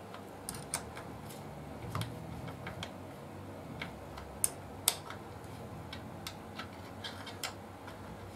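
Irregular light metallic clicks and taps of hand tools and motorcycle parts being handled, two sharper ones about four and a half and five seconds in.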